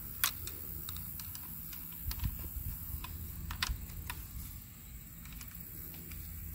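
Scattered small clicks and ticks of a flathead screwdriver turning the set screw in a brass wire coupler, tightening it to join the galvanized line to the copper antenna wire. The clicks come irregularly, a dozen or so, over a faint low rumble.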